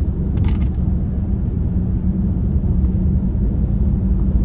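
Steady low road and engine rumble inside a moving car's cabin, with a short crackle about half a second in.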